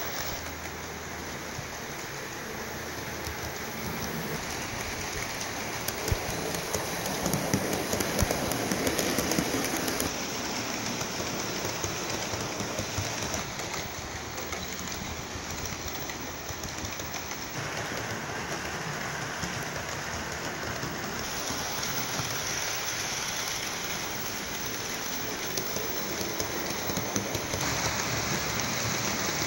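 Model trains running on the layout track: a steady rolling rush, with clicks from the wheels passing over the rail joints. The sound grows louder and heavier for a few seconds as the piggyback flatcar goes by close to the microphone.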